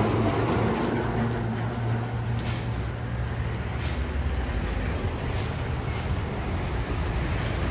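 Heavy truck engine running as it passes on the road: a low steady drone that eases off a little midway and swells again near the end. Faint short hisses come through about every second and a half.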